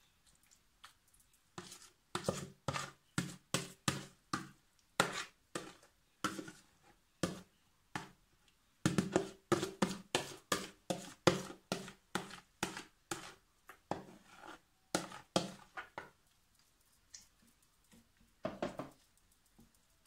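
Metal spoon knocking and scraping against a ceramic dish as thick yogurt salad is spooned out: a quick run of sharp knocks, about three a second, that thins out to a few stray taps near the end.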